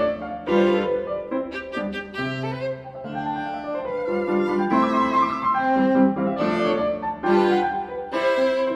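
Instrumental music: a violin playing a slow melody of held notes over piano accompaniment.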